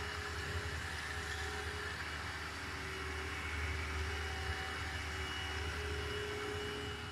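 Steady machine hum of a robotic concrete 3D printer at work: an ABB robot arm with a motorised extruder head laying beads of concrete. A constant low drone with a faint steady whine over it.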